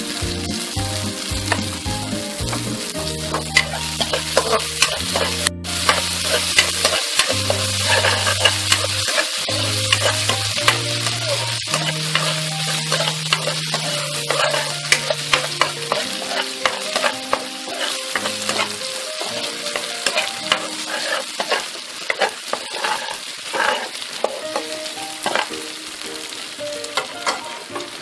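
Pounded chili and garlic sizzling in hot oil in a wok, stirred with a metal ladle that scrapes and clicks against the pan.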